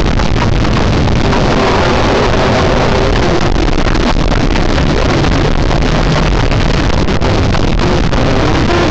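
A loud, steady wall of harsh, distorted noise with a low rumble underneath: logo audio heavily processed with edit effects.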